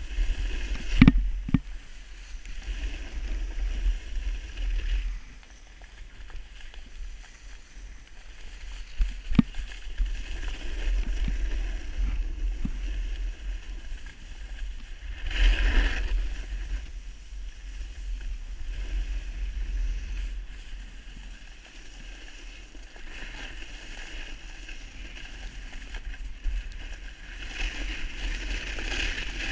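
Wind buffeting an action camera's microphone as it moves down a ski slope, with the hiss and scrape of a snowboard sliding over snow. The scrape swells louder twice, in the middle and near the end, and there are a few sharp knocks.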